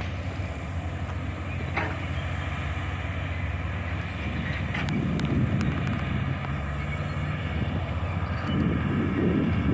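Bulldozer's diesel engine running steadily with a low hum, getting louder and rougher about five seconds in and again near the end, with a few sharp knocks.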